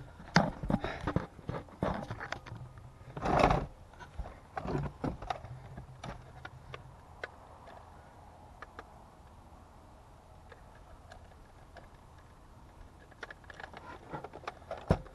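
Handling noise as the camera is moved about and set down on a playground structure: a run of uneven knocks and clicks, with a short rustling burst about three seconds in. After that there is faint outdoor quiet with a few light clicks near the end.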